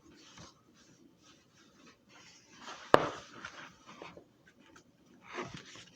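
Paper rustling and handling noise, as of a picture book's pages being handled, with a single sharp click about three seconds in.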